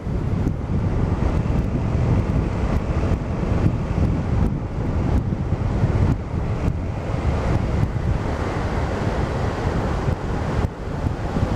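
Wind buffeting the microphone of a scooter riding steadily at road speed, with the low rumble of the ride underneath.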